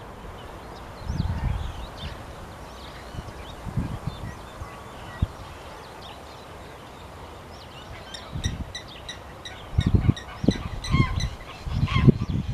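A goose honking in a quick, even series of calls, starting about two-thirds of the way in, with faint high chirps from the goslings or small birds before it. Wind gusts rumble on the microphone now and then.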